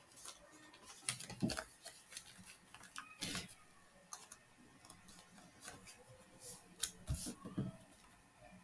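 Faint, irregular clicks of a computer keyboard as a short terminal command is typed, a few keystrokes spaced out over several seconds.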